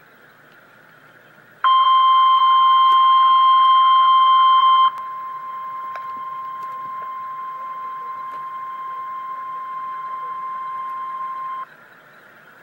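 NOAA Weather Radio warning alarm tone, the steady single-pitch tone that announces an emergency weather alert, over faint radio hiss. It comes in loud about a second and a half in, drops in level after about three seconds, holds steady for about seven more and then cuts off.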